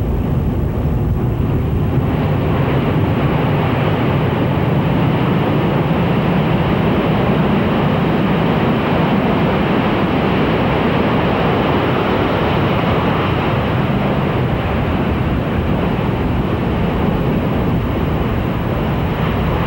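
Steady loud rushing noise of wind on the microphone over the low hum of a boat's engine.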